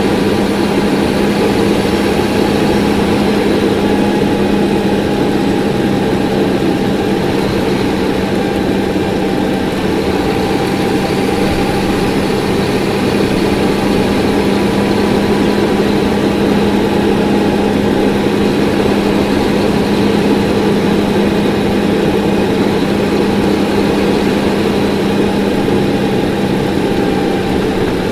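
Cummins ISC 8.3-litre inline-six diesel of a 2001 NovaBus RTS transit bus running steadily, heard from on board, with a constant low hum that holds the same pitch and level throughout.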